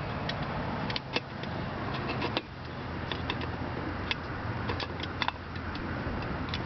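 Steady rumble of passing highway traffic, with scattered sharp crackles and pops from a wood fire burning under a pot.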